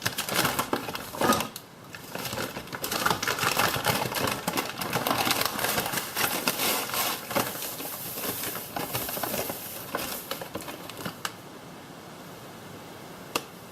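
Granulated sugar being measured and poured into a mixing bowl: a dense, gritty, crackling rattle of grains with small clicks, which tails off near the end. A couple of single sharp clicks stand out.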